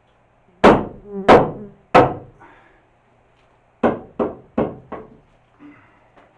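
Hammer blows knocking a big chunky timber into place in a wall frame: three heavy strikes about two-thirds of a second apart, then, after a pause, four quicker, lighter ones.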